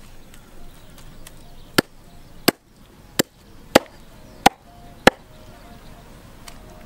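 Six sharp, evenly spaced chops of a small hatchet cutting through a snake into a round wooden chopping block, beginning about two seconds in.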